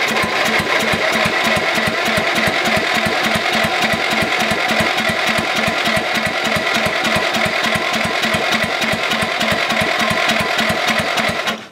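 Electric starter cranking the riding mower's 14-horsepower engine in an even chug of about four to five compression pulses a second. The engine does not fire: the choke has not actually been set. The cranking stops abruptly near the end.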